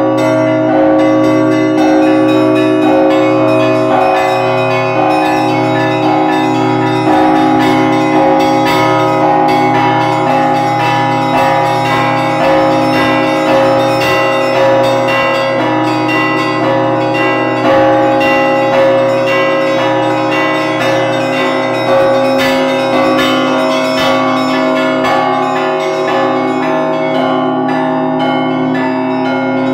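Russian Orthodox bell ringing (zvon) heard close up in the belfry: several bells are rung together by their clapper ropes, small bells struck in quick rhythmic patterns over the steady ring of the larger bells, in one loud, continuous peal.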